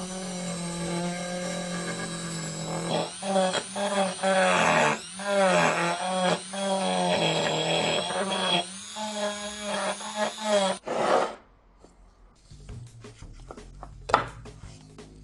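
Electric power tool running at a steady high speed, its pitch dipping as it bites into the work with a scraping rasp. It winds down and stops about eleven seconds in, followed by faint clicks and a single knock.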